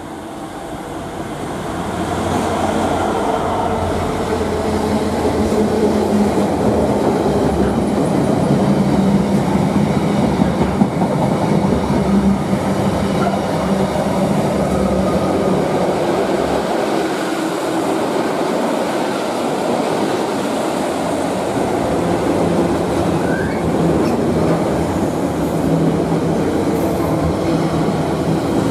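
A Freightliner Class 66 diesel locomotive passes at close range, its engine drone growing louder over the first two seconds. It is followed by a long train of intermodal container wagons, whose wheels rumble and clatter steadily on the rails.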